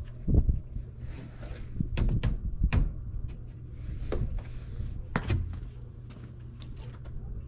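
Boots knocking and thudding on a truck's aftermarket running board as a man stands on it and shifts his weight, then steps down onto concrete; about six separate knocks, the strongest near the start and just after five seconds.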